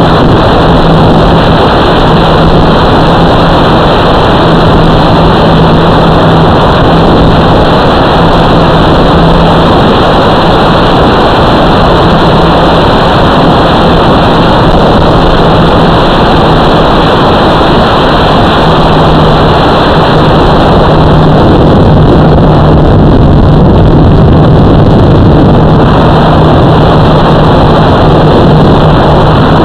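Loud, steady rushing motor noise with a constant low hum from a radio-controlled model, picked up by its onboard FPV camera's microphone.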